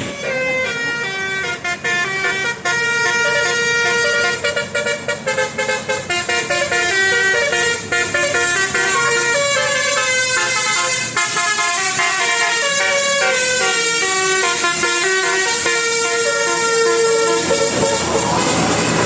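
Bus telolet horn, a multi-note air horn playing a fast tune of short stepped notes, several notes sounding together.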